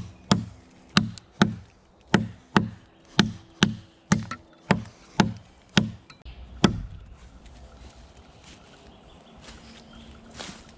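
Fiskars X5 camping axe chopping into a dead fallen log: sharp strikes about two a second, stopping after about six and a half seconds.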